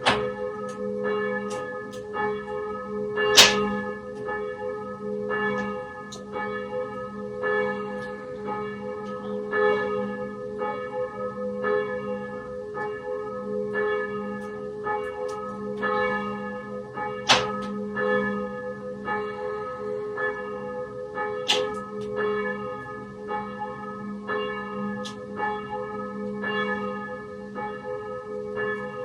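Church bells ringing continuously, several bells struck over and over so that their tones overlap and hum on between strokes. A few strokes land much louder than the rest.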